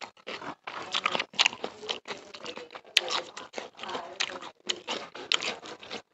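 A person eating chicken and rice by hand: wet chewing and lip smacking, a string of short irregular smacks, with one sharp click about three seconds in.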